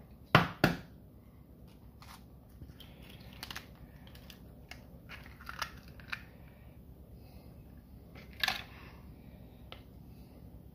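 Two sharp knocks in quick succession, then scattered small clicks and taps and one more knock near the end: eggs being cracked against a bowl and their shells handled while the yolks are separated.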